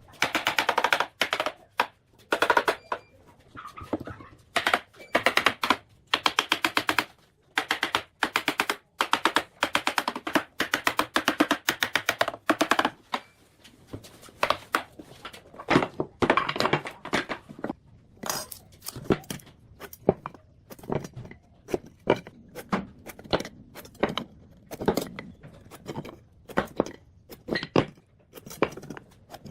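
Wood being worked with hand tools: bursts of rapid, closely spaced strokes in the first half, then scattered knocks and taps.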